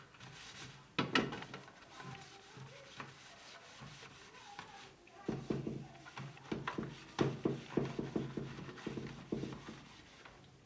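Knocks and rubbing from scrubbing the inside of a fridge with a soapy sponge, with a low hum and a run of short scrubbing strokes starting about halfway through.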